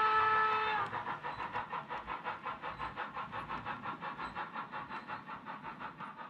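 Model railway train of four-axle passenger coaches rolling past, making rhythmic clicking at about five clicks a second that slowly fades as the last coach goes by. A steady horn-like tone of several pitches cuts off under a second in.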